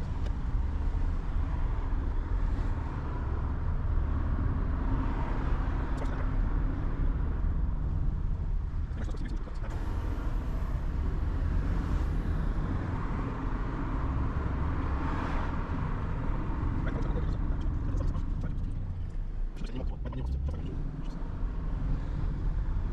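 Car driving on the road: a steady low engine and road rumble with a tyre hiss that swells and fades several times.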